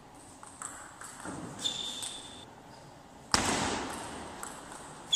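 Table tennis play in a large hall: a few light clicks and a short high squeak, then about three seconds in a loud sudden thump that echoes round the hall and fades. A second short squeak comes near the end.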